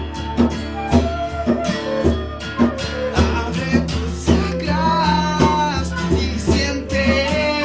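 Live band music: guitar playing over a steady beat of percussive hits.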